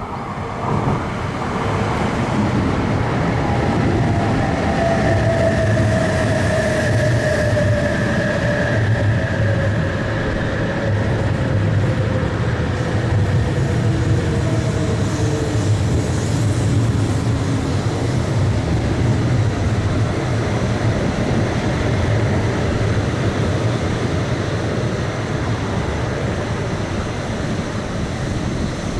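JR East E956 ALFA-X Shinkansen test train rolling past along the platform: a steady low rumble of wheels and running gear, with a whine that slides slowly down in pitch over the first fifteen seconds or so.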